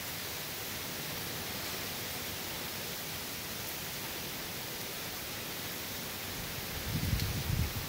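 Hurricane rain and wind: a steady, even hiss of rain, with wind gusts buffeting the microphone in low rumbles near the end.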